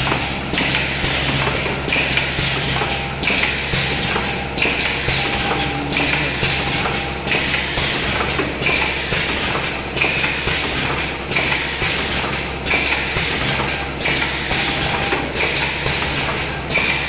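Automated ECG electrode production line running: clacking of its pneumatic and stepper-driven stations, with a hiss that cycles about every one and a half seconds, over a steady machine hum.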